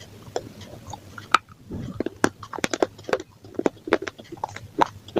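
Someone biting and chewing crunchy pizza: a sharp crunch a little over a second in, then a fast run of crisp crackles and chewing sounds.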